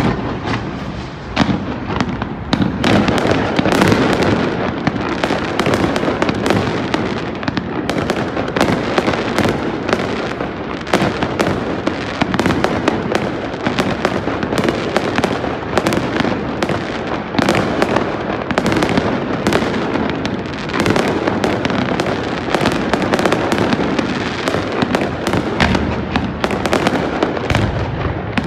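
Aerial fireworks display at full intensity: a dense, continuous barrage of overlapping bangs and crackles that begins suddenly.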